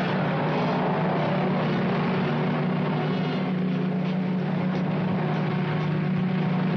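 Cartoon sound effect of a car engine running with a steady, even drone.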